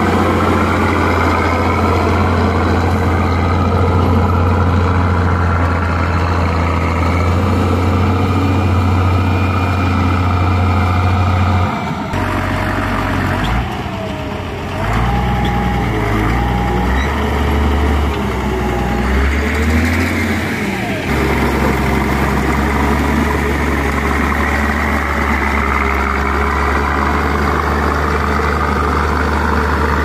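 Caterpillar motor grader's diesel engine running steadily as the machine grades dirt. The engine note shifts and wavers for several seconds in the middle, with a faint wavering whine, then settles back to steady running.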